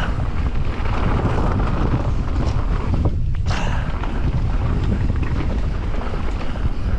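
Wind buffeting the microphone of a camera on a mountain bike riding fast down a dirt trail, with scattered clicks and rattles from the bike.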